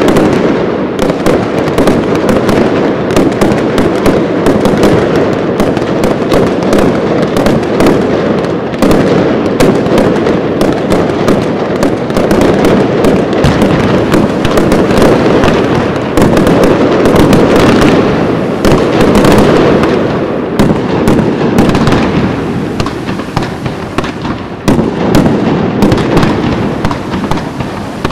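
Fireworks display going off in a dense, unbroken barrage of rapid overlapping cracks and bangs over a heavy rumble. It eases a little about three-quarters of the way through, then builds again.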